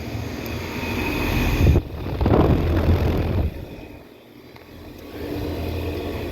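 Outdoor air conditioner condenser units running with a steady low fan and compressor hum. About two seconds in, a loud rush of air swells over it and drops away around three and a half seconds, then the hum fades and builds back up near the end.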